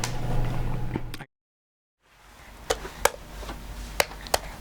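Low steady room hum, cut off abruptly by about a second of dead silence. Then a quieter background with several sharp, separate clicks or taps, about five of them spread over the last two and a half seconds.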